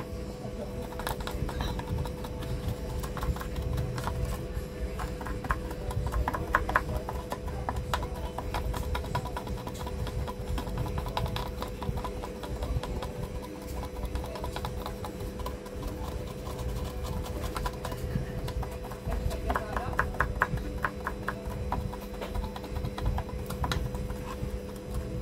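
A small hand tool scratching over the pins of a TV main board's connector in short runs of quick strokes, scrubbing off corrosion left by water damage. A steady low hum runs underneath.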